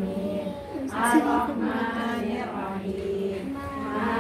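A group of voices singing or chanting together, holding long steady notes.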